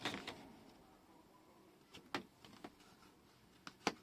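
Faint handling of paper on a table as a crafting piece is pressed into place: a few light taps and clicks, the clearest about two seconds in and just before the end.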